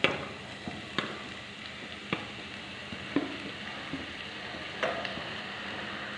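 Finely sliced onions going into hot oil in a saucepan, sizzling steadily, with sharp knocks about once a second as they are scraped off the cutting board with a spatula; the loudest knock comes right at the start.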